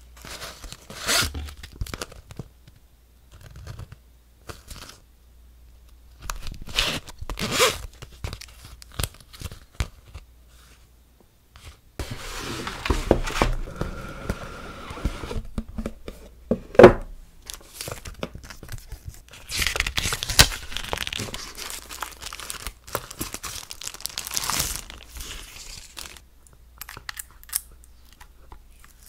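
Clear plastic packaging crinkling and rustling as hands handle it, with tearing and scraping sounds in separate bursts. Near the end, protective plastic film is peeled off a nail drill's casing.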